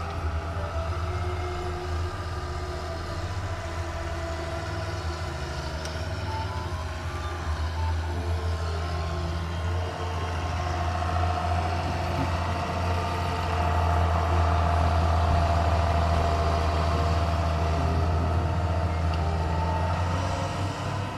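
Snowplow engine running steadily while it clears snow, louder in the second half.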